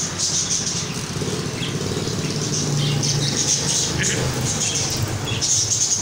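Many caged finches, zebra finches among them, chirping in a continuous overlapping chatter over a low steady hum.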